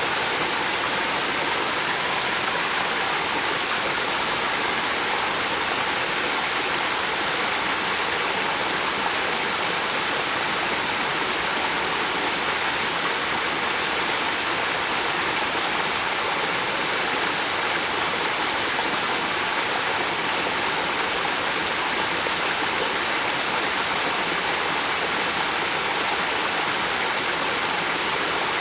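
River water flowing steadily: a continuous rushing hiss that does not change.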